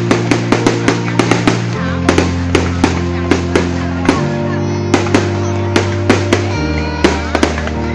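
Fireworks going off in a rapid string of sharp bangs, several a second, over music with a held bass chord that changes every couple of seconds.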